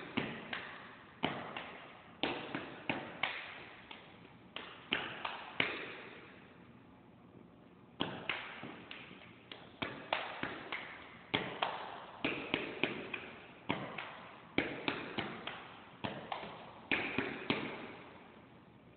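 Stepping routine: feet stomping on a hard tiled floor with hand claps and body slaps, in rhythmic groups of sharp hits, each one echoing. A pause of about two seconds comes around a third of the way through.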